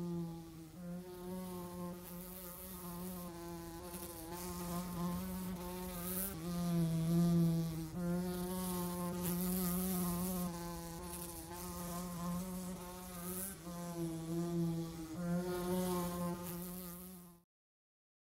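Insect wing buzzing, a steady fly-like drone that wavers slightly in pitch, cutting off suddenly near the end.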